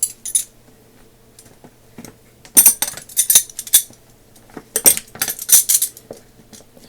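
Chrome-plated metric wrenches clinking against each other in two clusters of sharp metallic clinks as they are handled.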